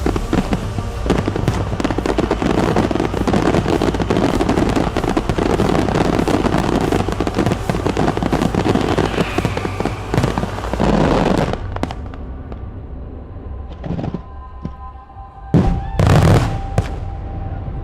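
Fireworks finale barrage: dense, rapid crackling and bangs for about twelve seconds, thinning out, then a few separate booms near the end, the last two the loudest.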